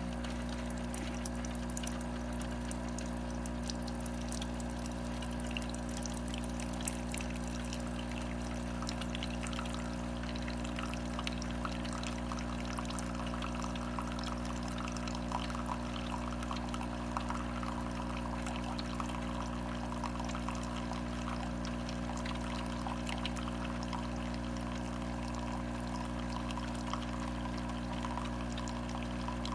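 Cuisinart SS-10P1 single-serve coffee maker brewing: a steady hum with a thin stream of hot coffee trickling and splashing into a cup.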